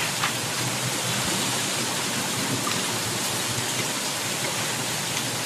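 Steady rain falling, an even hiss with no beat or voice over it.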